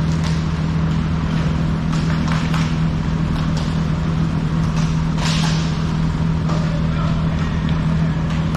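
A steady low mechanical hum from a large fan running right beside the microphone, with scattered sharp clacks of hockey sticks and puck from play across the rink. The loudest clack comes about five seconds in.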